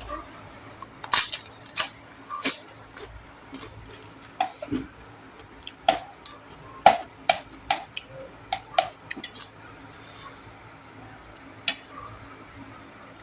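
A person eating up close: irregular sharp mouth clicks and wet smacks of chewing, most of them in the first two-thirds, then fading to a few near the end.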